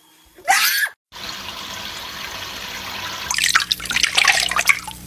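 Shower water running steadily, with irregular loud splashing from about three seconds in. A short, loud macaw squawk comes about half a second in and cuts off suddenly.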